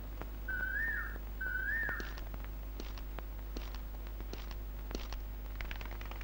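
Two short whistled calls about a second apart near the start, each sliding up and curling back down, over a low steady hum with faint scattered ticks.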